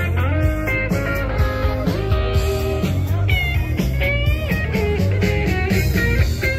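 Rock music with an electric guitar playing lead lines, several notes bent up and down, over a heavy steady bass.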